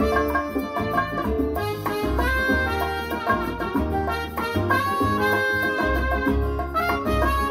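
Salsa-style music with a brass section and a heavy, pulsing bass line, played through an Icon Audio MFV 3 Super floorstanding loudspeaker in a sound test.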